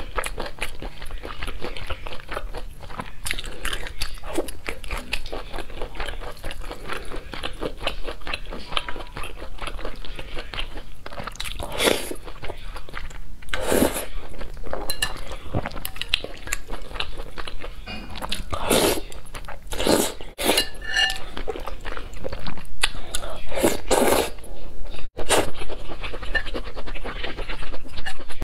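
Close-miked chewing of thick spicy noodles and shrimp, a steady run of wet mouth clicks, with several louder slurps or bites along the way.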